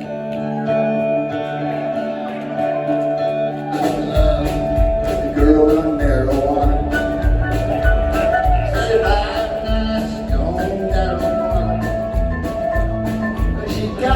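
Live rock band starting a song. An electric guitar plays alone for about four seconds, then drums and bass come in with a steady beat and the full band plays on.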